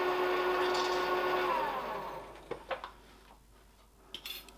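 Milling machine spindle running with an end mill taking a light clean-in cut, a steady whine with several tones. About a second and a half in it is switched off and runs down with a falling whine, and a few light clicks follow.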